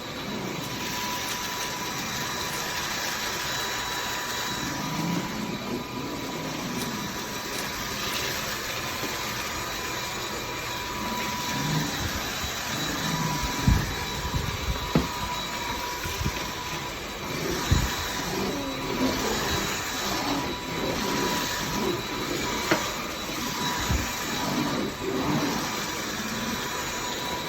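Dyson cordless stick vacuum running steadily as it sucks up spilled oatmeal, an even rush of air with a thin high whine, broken by a few sharp knocks about halfway through.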